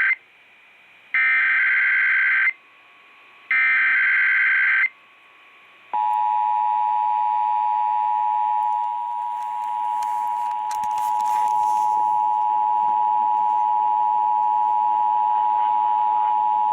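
Emergency Alert System monthly test tones. The last two of three SAME digital header bursts, each a harsh data screech about a second long with short gaps between. About six seconds in, the EAS two-tone attention signal (853 and 960 Hz) starts and holds steady for about ten seconds, then cuts off.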